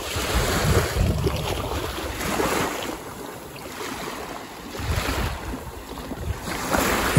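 Small waves washing in and out on a sandy beach, swelling and fading every couple of seconds, with wind gusting on the microphone.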